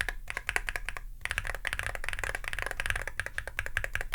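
Rapid, continuous typing on a Hall effect mechanical keyboard, the Akko MOD007 HE with pre-lubed Astrolink magnetic switches, PBT keycaps and an aluminium case. The keystrokes run together in a quick, even clatter, a sound called surprisingly good for a modern Hall effect board.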